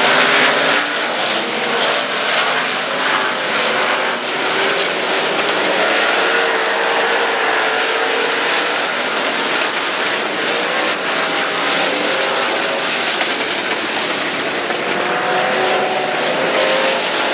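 Dirt-track race cars running at speed in a pack, their engines rising and falling in pitch as they go by, over a steady din of engine and exhaust noise.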